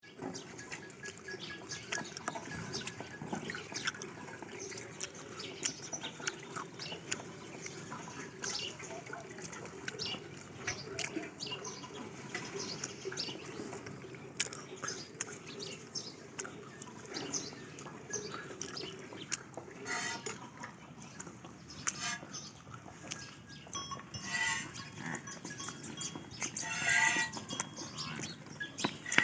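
Farm livestock in a shed: many small knocks and clicks throughout, with a few pitched animal calls near the end, the loudest about a second and a half before the end.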